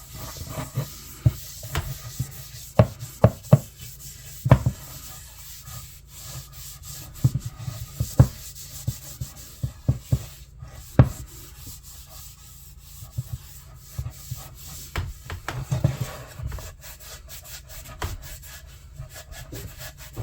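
Rubbing on the wood of a handmade bench hook, a steady scratchy sound broken by scattered sharp knocks.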